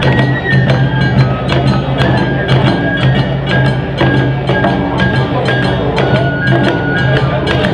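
Awa-odori festival band playing: drums and small hand gongs strike a quick, dense rhythm under a high melody of held notes.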